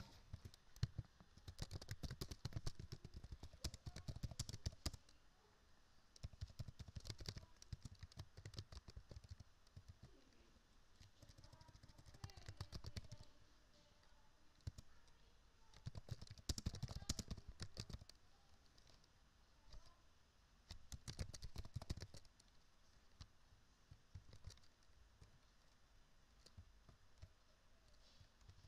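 Faint typing on a computer keyboard, in about five runs of rapid keystrokes separated by pauses of a second or two.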